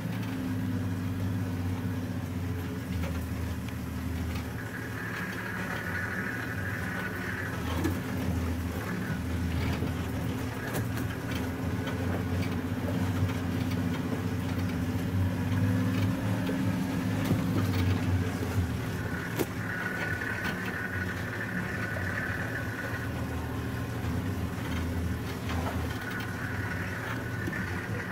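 Open game-drive vehicle's engine running steadily at low speed over a rough dirt track, with scattered knocks and rattles. A high steady tone comes and goes three times.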